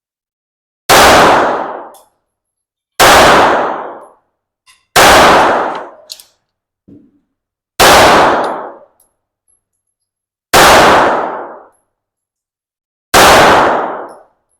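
Six single shots from a 9mm handgun, fired one at a time about two to three seconds apart, each sharp crack followed by a ringing tail about a second long.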